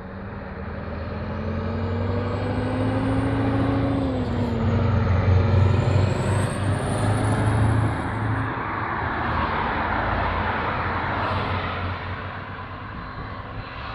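A Scania 143 420 truck's V8 diesel engine pulling a trailer past at speed: the engine note rises, then drops about four seconds in, with a high whine rising and falling over it. It is loudest as the truck goes by about six seconds in, then fades into tyre and engine noise as it drives away.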